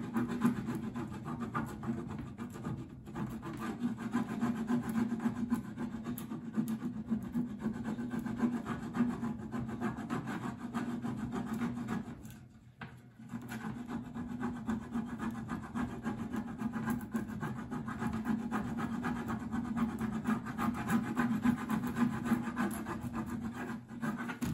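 Hands burnishing a rub-on decor transfer through its plastic carrier sheet onto a tin sap bucket: steady rubbing and scraping of plastic against the metal, with a short pause about halfway through.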